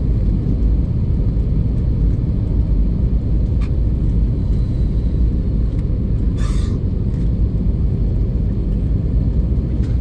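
Steady low rumble of cabin noise inside an Airbus A320 airliner descending on approach, engine and airflow noise heard through the cabin, with a brief hiss about six and a half seconds in.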